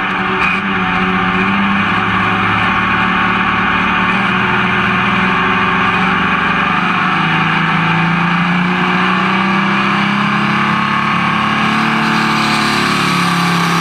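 Light Pro pulling tractor's engine running steadily, heard from the driver's seat, its pitch easing a little lower about halfway through.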